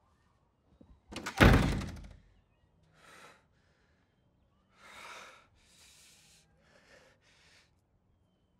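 A door slams shut with a heavy thud about a second in. Then come several short, breathy exhalations about a second apart.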